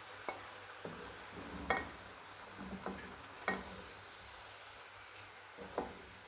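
Chicken pieces sizzling softly in oil in a karahi, with a spoon scraping and knocking against the pan five or six times as the chicken is scooped out.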